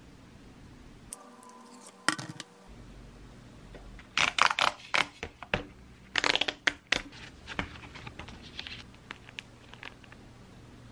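Cardboard and paper packaging being torn open along its strip: two bursts of tearing and crinkling a few seconds in, followed by lighter rustling and small clicks as the packets are handled.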